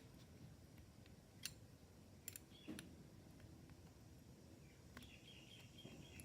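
Near silence with a few faint metallic clicks: a 7mm ring spanner working a small nut on a motorcycle carburettor.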